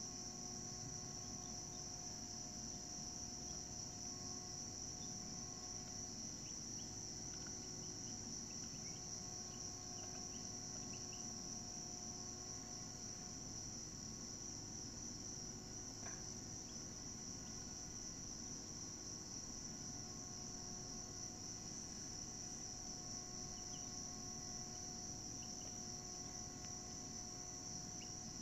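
Steady chorus of insects, an unbroken high-pitched trill, with a few faint short chirps now and then.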